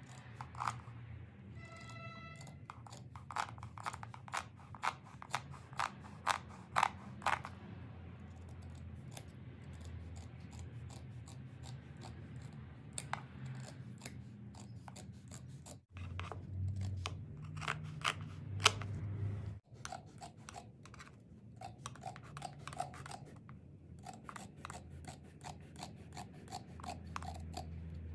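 Large scissors snipping through a carpet's rotten fringe, a series of crisp snips and blade clicks in quick runs.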